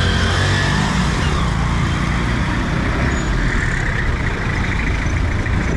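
Busy road traffic: car and truck engines running and passing, a steady low rumble with tyre noise.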